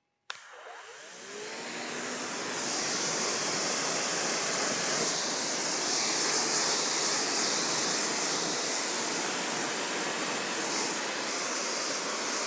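EGO Power+ 3200 PSI battery-powered pressure washer spraying through a wide tip onto a tractor tyre. It starts abruptly, builds over about two seconds, then holds a steady, loud hiss of the water jet and pump.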